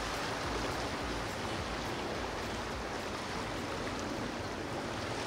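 Steady rushing water noise with a low rumble underneath.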